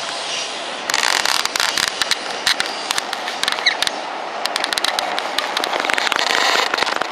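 Running noise of a moving train heard from on board: a steady rush overlaid, from about a second in, by dense, irregular crackling clicks.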